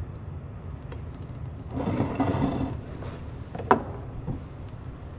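Soft handling noises as slices of raw fish are arranged by hand on a ceramic platter, over a low steady hum, with a louder rustle about two seconds in and one sharp click a little later.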